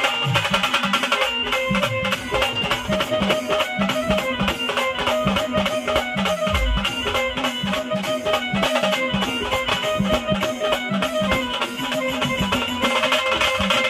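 Khandeshi band music: sambal drums beating a steady, quick rhythm of about three strokes a second under a sustained melody line.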